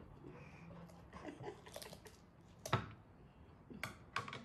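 Faint, scattered clicks and snips of kitchen scissors cutting through a roast duck on a plate, with one sharper click a little past halfway and two more near the end.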